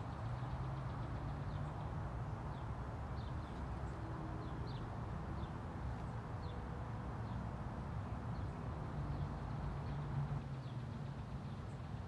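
Outdoor ambience: a steady low hum under a soft, even rushing, with faint short high bird chirps scattered through it.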